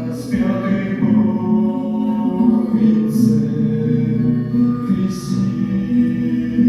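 A song: a voice singing held notes over instrumental accompaniment.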